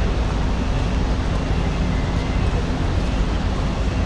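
Steady low rumble with a faint hum from the docked cruise ship Diamond Princess's onboard machinery, heard close alongside the hull.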